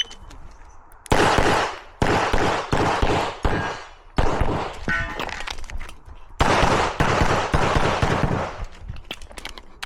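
A string of handgun shots fired in quick uneven groups, each crack followed by a long echo: a competitor shooting an IPSC course of fire.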